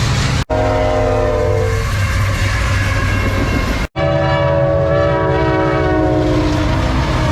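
A passenger train's air horn sounds a loud chord of several notes over the rumble of the locomotives and wheels. The chord's pitch drops twice, and the sound cuts out for an instant twice.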